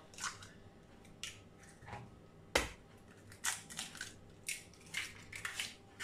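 Two raw eggs being cracked on the rim of a bowl and their shells broken open: a series of short, sharp cracks and clicks, the loudest a single knock about two and a half seconds in.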